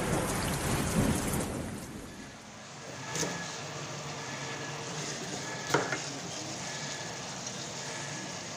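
A thunder sound effect rumbles loudly for about the first two seconds, then sliced meat sizzles steadily in a nonstick wok as it is stirred with a wooden spatula, which knocks sharply against the pan twice.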